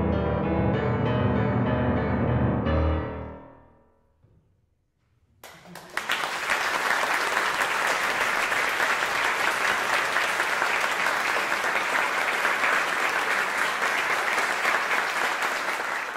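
Grand piano sounding the closing chords of a piece, which ring out and die away about four seconds in. After a short hush, an audience breaks into steady applause that lasts to the end.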